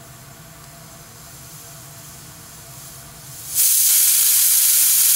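Hawkins pressure cooker venting steam. A faint hiss builds at first, then about three and a half seconds in the pressure-regulator weight lifts and steam rushes out with a sudden, loud, steady hiss: the cooker has reached full working pressure.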